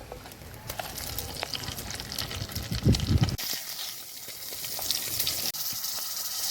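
Tomato and spices frying in hot sesame oil, a steady sizzle with small crackles that grows stronger in the second half. A loud low rumble comes about three seconds in.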